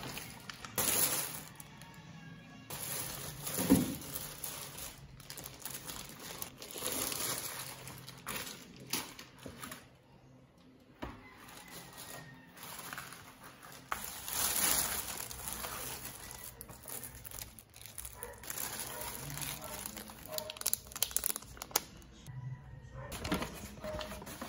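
Brown paper shopping bag crinkling and rustling in irregular bursts as things are taken out of it and handled, with a few light knocks of items being set down.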